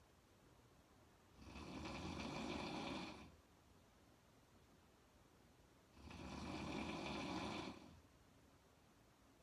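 A woman snoring with her mouth open: two long snores, each about two seconds long, one about a second and a half in and one about six seconds in, with quiet breathing between them.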